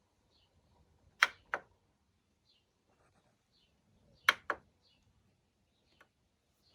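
Two sharp double clicks, about three seconds apart, with a single small tick near the end.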